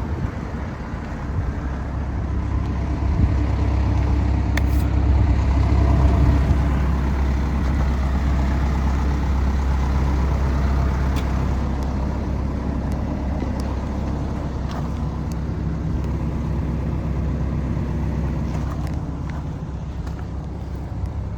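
Kobelco SK210LC-9 excavator's Hino diesel engine idling steadily, a low even hum.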